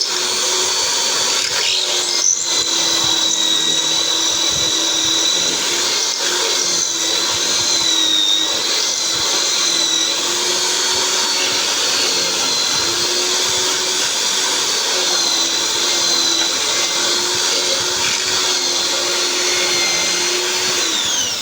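Electric drilling machine running continuously, its motor whine wavering slightly in pitch as the load changes, then winding down and stopping at the very end.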